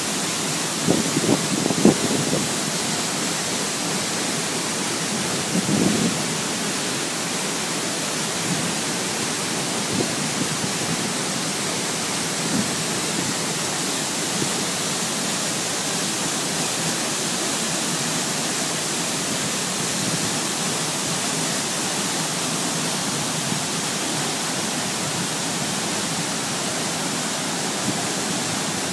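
Waterfall pouring in a steady, even rush of falling water. A few brief low bumps cut through it, the loudest about one to two seconds in and around six seconds.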